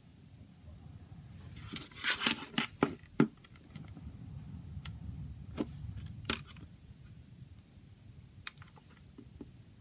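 Hands handling a CD and its packaging: a burst of plastic rustling and scraping with sharp clicks about two seconds in, then a few separate clicks.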